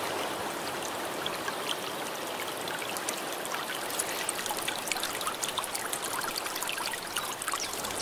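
Water trickling and dripping off a cushion of moss on a rock face, a steady trickle with many small drips ticking through it, the drips more frequent from a few seconds in.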